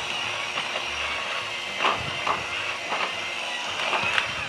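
Handheld electric mixer running steadily with a high motor whine, its beaters working two sticks of softened butter in a glass bowl, with a few short clicks along the way.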